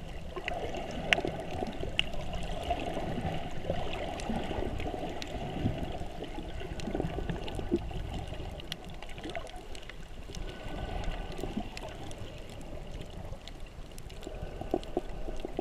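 Underwater sound heard through a submerged camera: a steady, muffled water rush with scattered sharp clicks.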